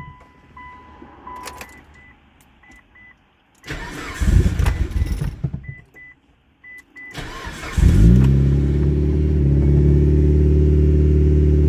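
A dashboard chime beeps, then the starter cranks the Mitsubishi Lancer Evolution's turbocharged four-cylinder engine briefly without a start, cranks again about seven seconds in, and the engine catches and settles into a steady idle. It is the first start after the burnt power wiring and fuses were replaced, and it shows the no-start is fixed.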